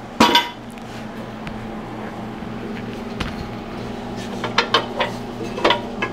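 Clanks and knocks of a cast aluminum mailbox and its hardware being handled on a workbench: a loud double knock with a short ring just after the start, then a cluster of lighter clicks and knocks near the end. A steady low hum runs underneath.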